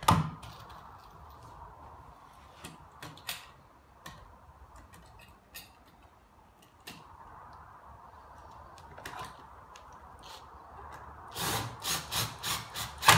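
Scattered clicks and knocks of hinges and screws being handled. Near the end, a cordless drill-driver drives a screw through a hinge into the wooden sawhorse frame in a run of short, loud bursts, about three a second.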